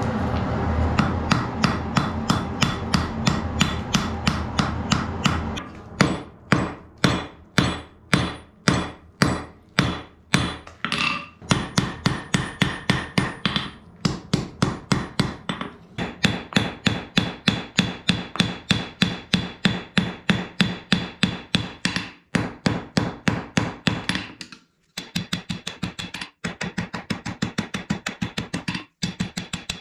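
Hand hammer striking a red-hot bar of bloomery phosphorus iron on an anvil: a long run of steady blows, about two to three a second, each leaving a short ring. The hammering breaks off briefly a few times near the end.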